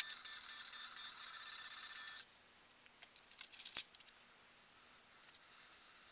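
A steady high hum cuts off about two seconds in. About three and a half seconds in, a few small screws tipped from a plastic box clatter briefly onto a plywood sheet.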